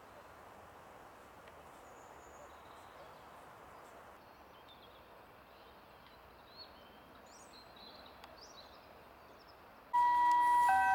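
Steady outdoor background noise with a few faint bird chirps. Near the end, loud chime-like music notes start suddenly.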